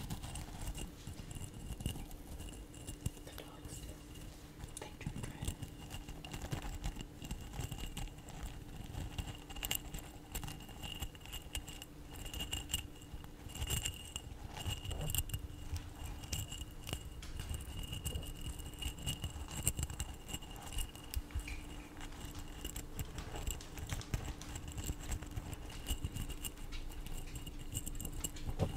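Loose dried herbs rustling and crackling in a glass jar as it is handled close to the microphone, with many small clicks and soft bumps.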